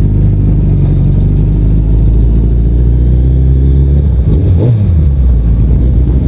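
Suzuki Hayabusa's inline-four engine running steadily at low revs under the rider, with a brief shift in pitch about four and a half seconds in.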